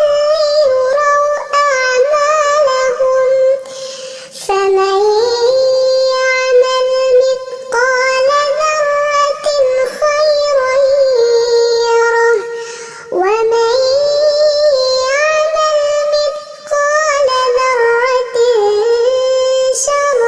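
A high-pitched solo voice chanting Quran recitation in long, ornamented melodic phrases with held, wavering notes, breaking briefly for breath about four seconds in and again past the middle.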